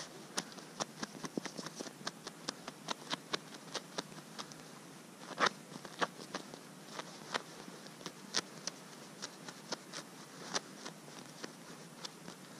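Feathers being pulled by hand from a ptarmigan: a run of quick, irregular soft ticks and small rips, with a sharper rip about halfway through.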